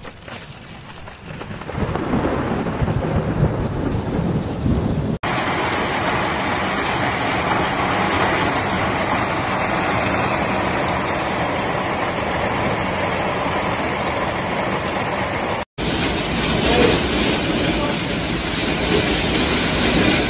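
A low rumble of thunder building over the first few seconds, then hail and heavy rain falling hard in a dense, steady hiss that cuts out for an instant twice.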